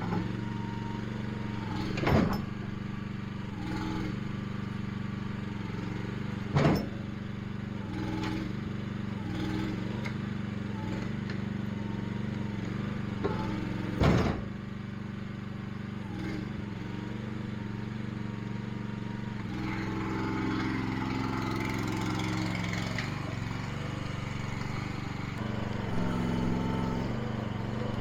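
Small gasoline engine running steadily under work, with three loud knocks about two, six and a half and fourteen seconds in; past the middle the engine sound grows busier and shifts in pitch.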